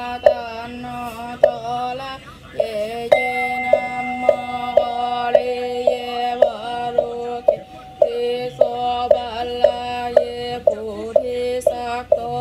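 Buddhist liturgical chanting by a voice held on an almost single pitch, syllable by syllable. A sharp knock from a mallet-struck percussion instrument keeps time with it, a little under two strikes a second.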